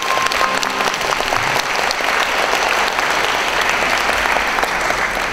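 Audience applauding, starting as the ensemble's last held note dies away in the first half-second.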